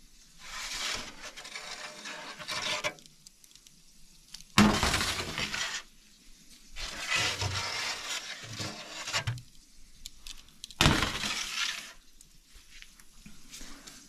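Metal freeze-dryer trays scraping and clattering as they are slid out of the chamber's shelf rack and handled. There are two sharp clanks, one about four and a half seconds in and one near eleven seconds.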